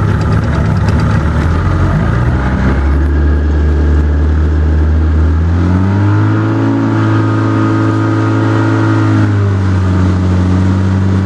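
Motorboat engine running under way. It speeds up about six seconds in, holds there for a few seconds, then eases back to its earlier pace.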